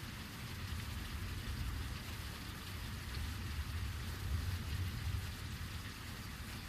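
Heavy rain falling steadily: a constant hiss with a low, wavering rumble underneath.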